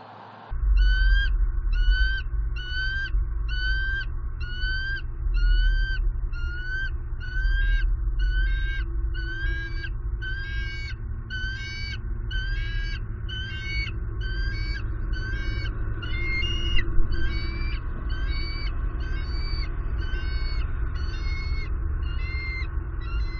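A bird repeating the same short, slightly rising call about three times every two seconds, evenly and without a break, over a steady low rumble.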